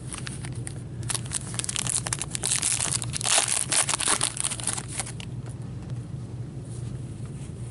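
Foil wrapper of an Upper Deck MVP hockey card pack being torn open and crinkled by gloved hands: a dense crackling rustle from about a second in, loudest around the middle, easing off after about five seconds.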